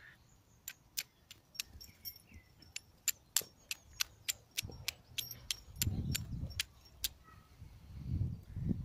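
Steel striker scraped against a piece of flint: about twenty sharp metallic clicks at roughly three a second, stopping about seven seconds in. Two low rumbles come near the end.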